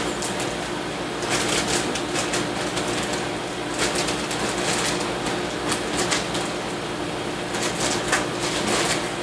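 Clear plastic bag and newspaper wrapping crinkling and rustling in irregular bursts as it is handled and unwrapped, over a steady low hum.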